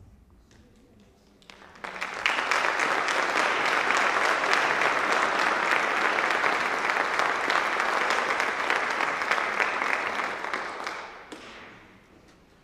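Audience applauding in a concert hall at the end of a piece, rising in about two seconds in, holding steady, then dying away near the end.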